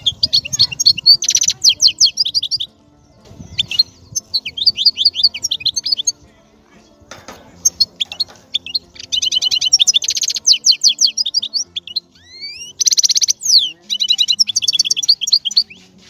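A small finch singing in phrases of fast twittering chirps and dense rolling trills, with short pauses between the phrases.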